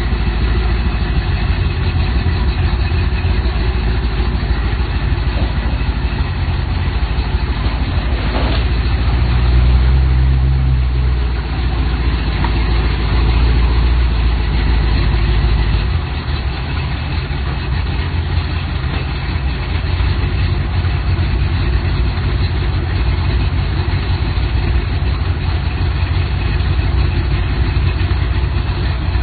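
Ford Mustang fastback built in Shelby GT500 style, its engine idling with a loud, deep rumble. The rumble swells for several seconds about a third of the way in, then settles back to a steady idle. A single knock comes just before the swell.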